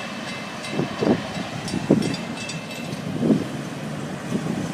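Florida East Coast Railway freight cars rolling past at speed: a steady rumble with wind on the microphone and a few short squeals or blips.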